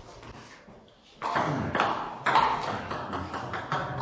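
Table tennis ball struck back and forth in a rally, sharp hits on bats and table about every half second, ringing in a hard-walled hall. It starts about a second in after a quieter moment.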